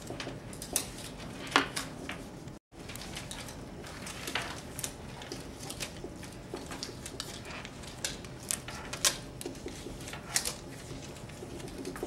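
Quiet room with scattered small clicks, taps and rustles of pens and paper as people write on post-it notes. The audio cuts out completely for a moment about two and a half seconds in.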